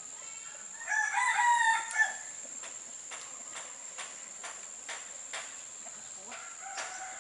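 A rooster crowing once, about a second in, over a steady high-pitched insect drone. Faint clicks follow, about two a second.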